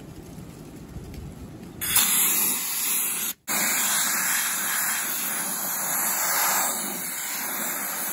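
Harbor Freight Central Pneumatic gravity-fed blast gun spraying dry used coffee grounds: a low rumble, then a loud, steady hiss of air and media that starts about two seconds in. The hiss breaks off for a moment about a second later and stops abruptly near the end.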